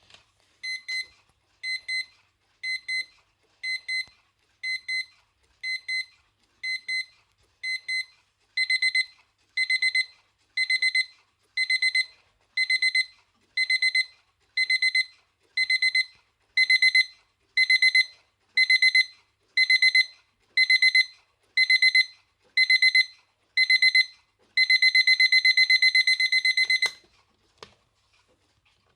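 A MAG Akebono alarm table clock's electronic alarm, beeping in stages that grow louder and longer. It starts with short high double beeps about once a second, moves to longer, louder beeps at the same pace, and ends in a couple of seconds of continuous rapid beeping before it cuts off near the end.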